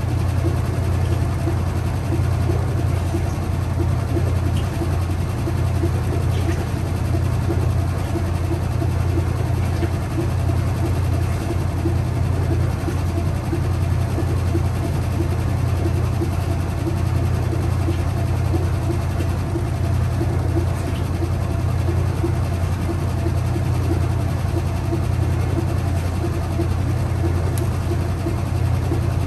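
Kenmore 80 Series top-load washing machine in its final spin: the motor and spinning tub give a steady low hum that holds an even level throughout.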